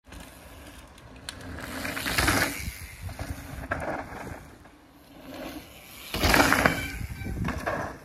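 Mountain bike tyres rolling and scraping over loose, dry dirt trail as riders pass close by, loudest about two seconds in and again about six seconds in.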